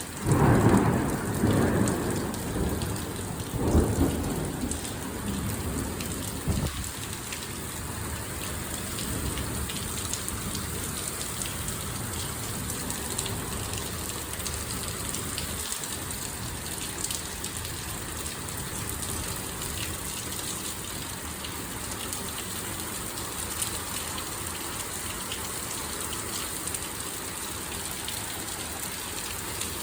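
Thunder crashes and rumbles in the first few seconds, with a second peak about four seconds in, over a torrential downpour. Once the thunder fades, the heavy rain goes on evenly.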